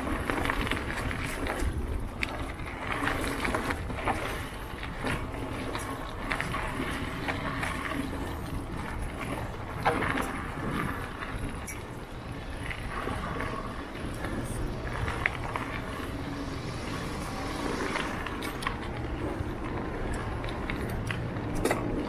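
Mountain bike ridden over a dirt singletrack trail: a continuous rolling noise of knobby tyres on dirt and leaves, broken by frequent sharp rattles and knocks as the bike goes over bumps.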